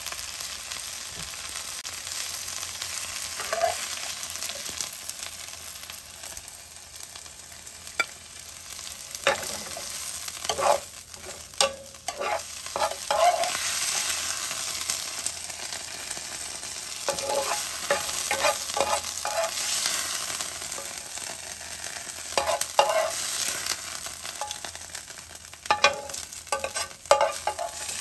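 Bok choy sizzling in a hot frying pan while a metal spoon stirs it and scoops it out, the steady hiss broken by clusters of metal clinks and scrapes against the pan, first about a third of the way in and again through the second half.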